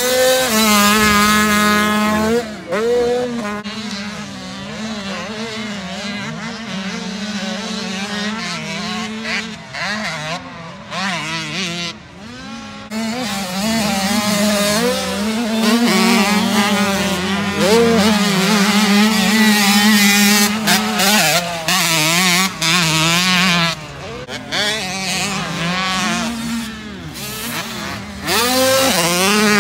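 Dirt bike engines revving up and down as the bikes ride a motocross track, their pitch rising and falling through gear changes, with more than one bike heard at once.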